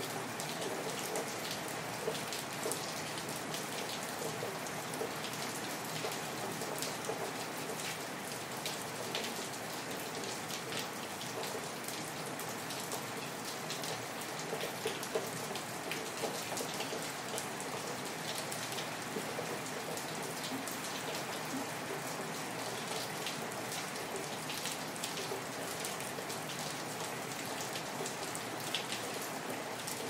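Steady rain falling: an even hiss dotted with many small, sharp drop hits.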